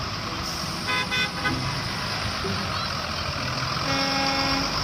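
Electronic horn of a toy school bus tooting: a few short toots about a second in and one longer toot near the end, over a steady hiss.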